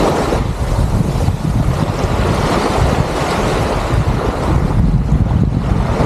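Small sea waves breaking and washing up a sandy shore, swelling as each one runs in, with wind buffeting the microphone in a low rumble.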